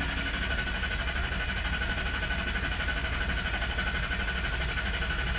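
Starter cranking the Mercury Grand Marquis's 4.6-litre V8 in clear-flood mode, with the accelerator floored so it turns over without starting, to prime the oil system after an oil change with an unfilled filter. The crank is steady and even, a sign of a healthy starter and engine, and it stops suddenly at the end.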